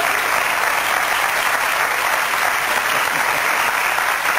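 Studio audience applauding, a steady, dense clapping that holds at one level throughout.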